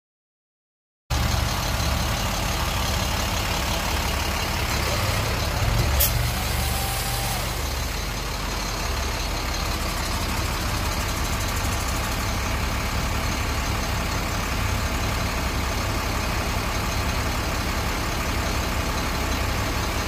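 Boom truck's engine running steadily at idle while it works the crane, coming in about a second in. A single sharp click about six seconds in.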